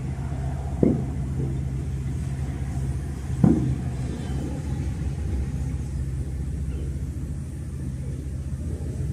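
A steady low rumbling drone, with two short sharp sounds about a second and three and a half seconds in.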